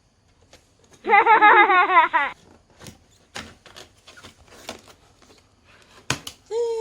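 A brief loud warbling sound, wavering in pitch, about a second in, followed by a scatter of light clicks and taps like a cardboard box and its packaging being handled.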